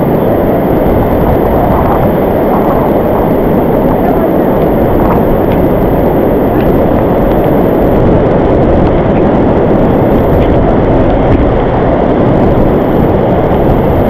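Waterfall rushing: a loud, steady noise of falling water.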